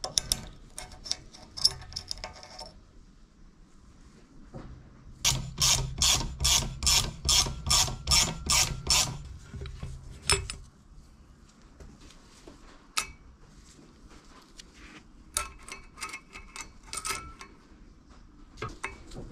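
Metal hand-tool work on a homemade valve spring compressor: sharp clicks of a pick against the valve collets, then a run of about ten evenly spaced metallic strokes, two or three a second, as the compressor is wound back off the valve spring. Near the end, more light metal clinks as the spring and retainer are lifted out.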